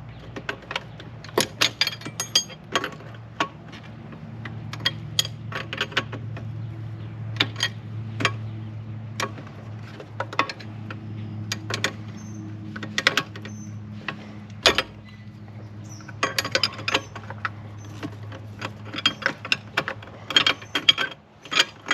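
Irregular metallic clicks and clinks of a wrench turning a new engine coolant temperature sensor down into its threaded port, over a steady low hum.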